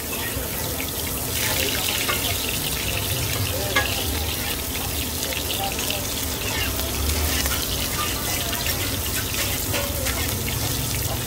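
Hot oil sizzling and crackling steadily in a pan as battered mussels fry crisp for hoi tod.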